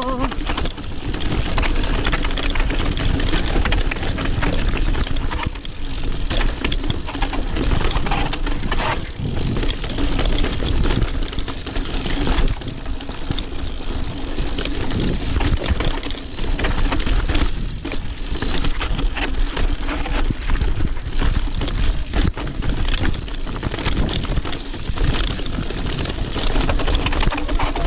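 Mountain bike clattering over rock as it rolls down a rough trail, with many short knocks and rattles from the wheels and frame. A heavy, steady wind rumble on the camera microphone runs underneath.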